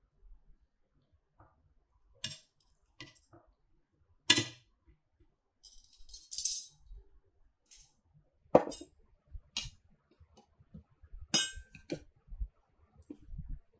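Stainless steel tongs and a mesh strainer clinking and tapping against a ceramic plate as food is set down: about seven scattered sharp clinks, with a short rustle in the middle.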